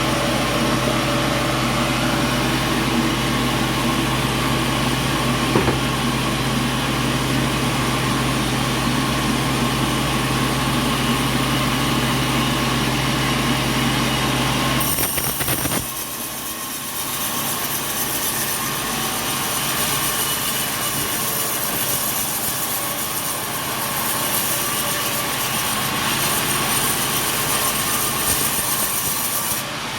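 Sawmill machinery running steadily with a low hum. About halfway through the hum drops away and a high hissing noise takes over.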